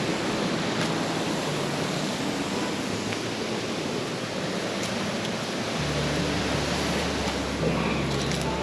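Steady rush of creek water flowing and cascading over rocks. A low rumble joins in about six seconds in.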